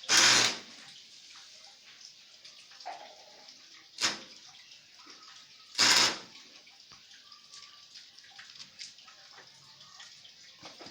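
Three loud, sharp knocks: one right at the start, one about four seconds in and one about six seconds in, the first and last ringing on for about half a second. Between them there is a steady faint hiss.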